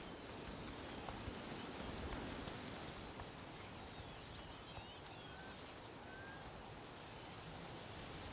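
Quiet outdoor grassland ambience: a steady soft hiss with a few faint bird chirps around the middle.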